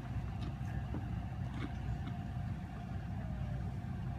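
Steady low rumble of an idling engine, with a faint steady hum above it and a few faint ticks.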